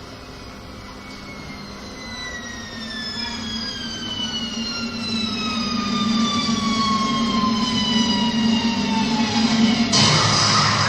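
A theatrical sound effect: a long whistle falling slowly in pitch over about ten seconds, above a low hum that grows steadily louder. Near the end it gives way to a sudden loud burst of crowd noise.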